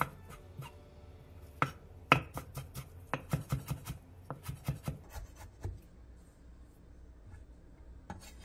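Chef's knife mincing perilla leaves on an end-grain wooden cutting board: a single chop, then a quick run of about four to five strokes a second for some three seconds, trailing off to faint light knocks.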